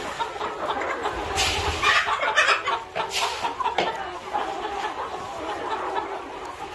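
A large flock of country (naati) chickens clucking and calling over one another, loudest around the middle with several sharp calls close together.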